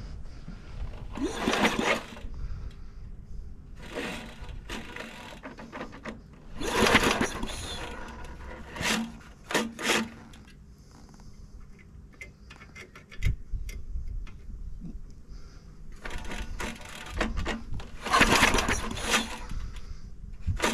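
Recoil starter pulled several times, each pull cranking the 8 HP engine of a 1965 Rover Ranger ride-on mower over briefly without it firing. The plug is out, held against the engine body to check for spark, and there is none.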